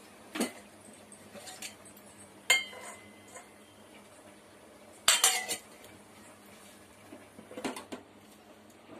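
A metal spoon or ladle clinking against a metal cooking pot while soft-cooked ven pongal is worked with it. The clinks come in four bursts, the loudest a quick cluster about five seconds in, and one strike about two and a half seconds in leaves a short metallic ring.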